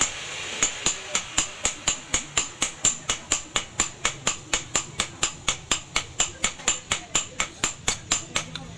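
Hand hammer forging a red-hot steel meat cleaver blade on a small post anvil. The blows come steadily, about three a second, each a sharp metallic clank with a short high ring.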